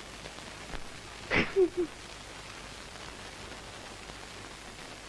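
Steady hiss of an old film soundtrack, with one short sound about a second and a half in.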